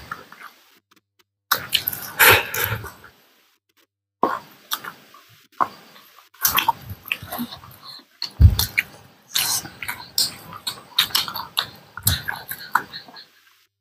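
Close-miked crunching, chewing and lip-smacking of crunchy fried food in irregular bursts, with short silent gaps between them. A low thump sounds about eight seconds in.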